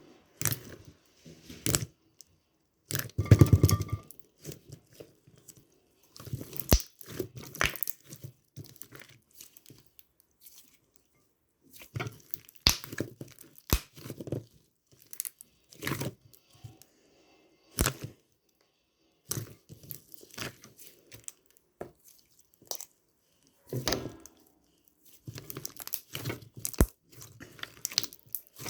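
Clear slime being squished and pulled by hand, giving irregular sticky pops and crackles in short bursts with brief pauses between them.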